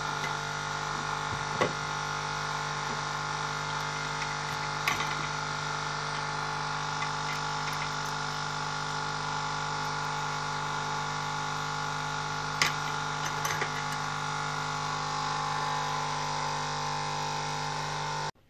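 A steady mechanical hum with several fixed tones, stopping abruptly just before the end. A few light taps ring out over it: brass parts knocking against a glass baking dish as a hand moves them in a vinegar-and-salt soak.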